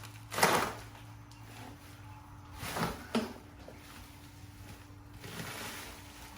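Wrapped packing material being handled: a few short knocks and scrapes and some rustling of wrap and cardboard.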